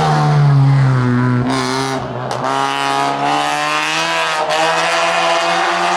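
Rally car engine at full throttle, dropping in pitch at a gear change about two seconds in, then revving steadily higher as it accelerates hard again.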